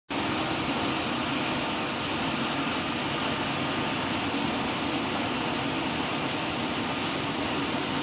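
Natural gas hissing steadily out of a ruptured gas main, a loud even rush with no breaks, after an excavator bucket struck the pipe.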